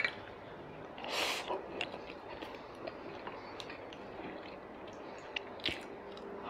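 Close-miked chewing of a mouthful of food: soft wet mouth clicks and smacks, with two short breathy sounds, one about a second in and one near the end.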